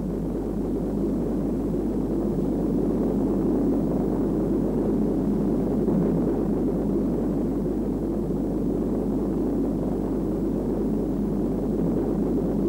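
Large rocket lifting off: the steady, even rush of its engines' exhaust, a deep noise without pauses.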